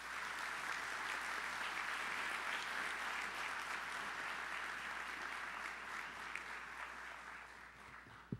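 Audience applauding, a steady mass of clapping that slowly dies away near the end.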